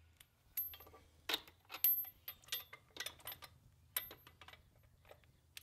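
Ratcheting torque wrench clicking in short, uneven runs as tractor wheel bolts are turned through an offset extension, some clicks with a light metallic ring.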